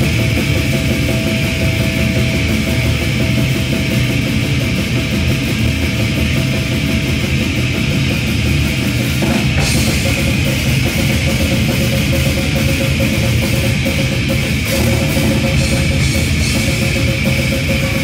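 Live heavy metal band playing, with distorted electric guitars, bass and drums in a loud, continuous wall of sound. The high end grows brighter from about halfway through.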